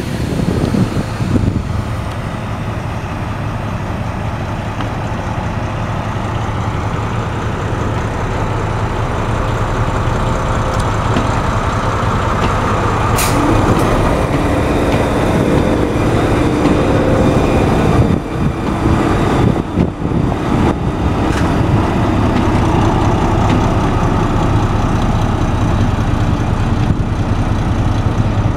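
SNCF BB 69400 diesel locomotive engine running as the train moves slowly along the track, getting louder as the locomotive comes close, with a steady engine note joining about halfway through.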